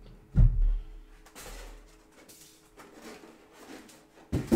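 Styrofoam packing blocks being pulled off a new sewing machine and set down. There is a heavy thump about half a second in, rubbing and scraping of foam after it, and another thump near the end.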